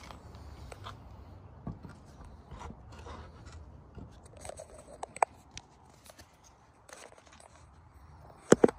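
Handling noise from a phone held in the hand: scattered rustles and clicks as fingers shift on the phone, with a sharp click about five seconds in and a cluster of loud knocks near the end as it is jolted.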